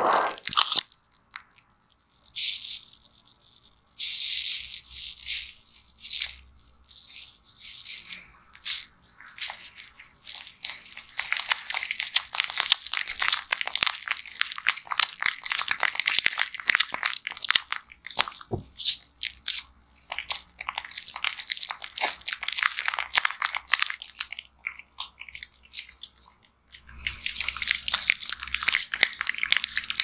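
White foam lather rubbed and squished by fingertips against the silicone ear of a binaural ASMR microphone, heard close up as dense fizzing crackle. It comes in spurts with short quiet gaps and is busiest through the middle and again near the end.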